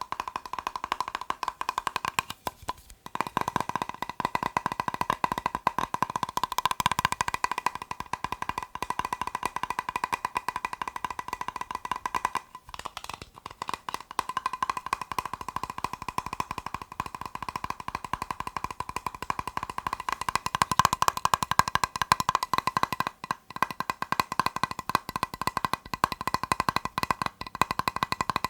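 Rapid, dense tapping on a plastic box, a fast run of light clicks broken by a few brief pauses.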